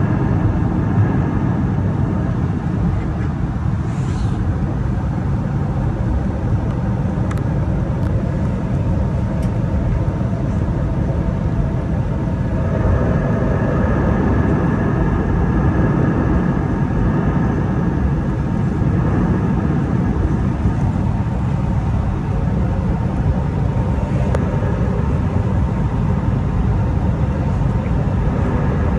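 Airbus A320neo cabin noise in the climb, heard inside the cabin: a steady low rumble of the engines and airflow, with faint steady engine tones above it that grow a little stronger for several seconds midway.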